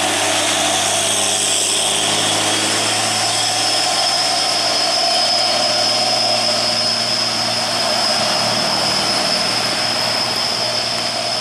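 Diesel engine of a Hino three-axle box truck working hard up a steep grade as it passes close and climbs away, with a steady high whine over the engine note from a few seconds in.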